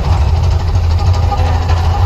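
Deep, steady rumble of the Mirage volcano show's eruption.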